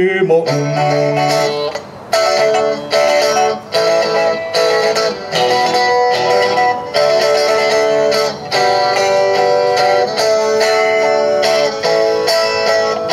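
Amplified electric guitar strumming chords in a steady rhythm, with a few short breaks between phrases.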